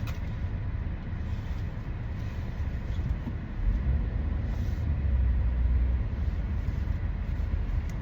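Car engine and cabin rumble heard from inside the car, a low steady drone that swells louder for a few seconds in the middle as the car creeps forward.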